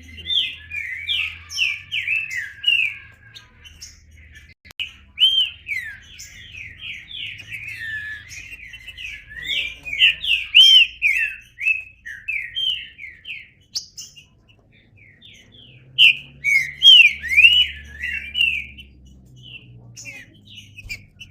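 Green-winged saltator (trinca-ferro) singing loud, rapid phrases of quick up-and-down whistled notes, in several bursts separated by short pauses.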